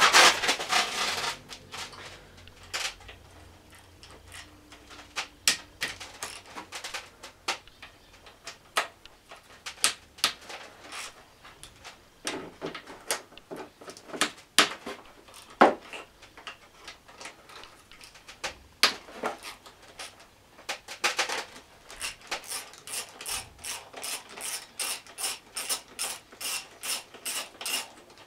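Socket ratchet wrench clicking as it undoes the valve-cover bolts on a small four-stroke scooter engine, mixed with scattered knocks and clinks of tools on metal. Near the end the ratchet runs in a steady series of about four clicks a second.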